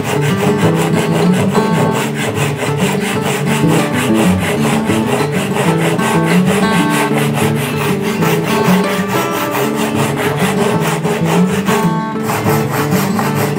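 Japanese pull saw cutting a tenon shoulder across the grain of a timber beam, rasping in quick, even strokes, with a short break near the end. Acoustic guitar music plays underneath.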